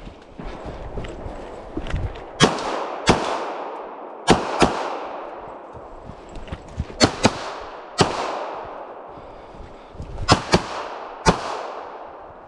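About ten pistol shots fired close by, in quick pairs and singles spread across the stretch. Each loud crack is followed by a long echo that rings out through the forest.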